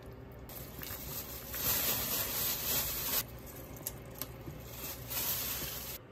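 Beef and radish soup bubbling in a cast-iron pot, a hissing, watery wash of noise that comes in two stretches, with a wooden spoon stirring through it early on. It cuts off abruptly near the end.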